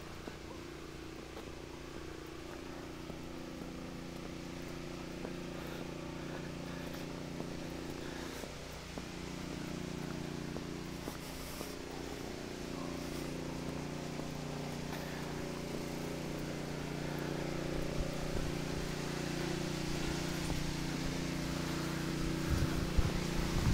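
An engine running steadily with an even hum that grows slowly louder, with low wind buffets on the microphone near the end.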